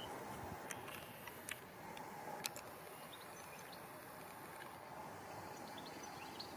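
Faint, steady distant jet noise from a Boeing 737 MAX 10's CFM LEAP-1B turbofans as it flies its display, with a few short bird chirps and light clicks over it.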